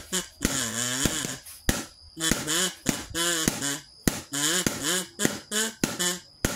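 Music with a singing voice in short wavering phrases over sharp percussive hits.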